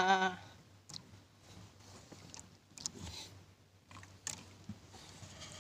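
A brief vocal sound right at the start, then faint scattered clicks and rustles over low background noise as hands work a fishing line on a small boat.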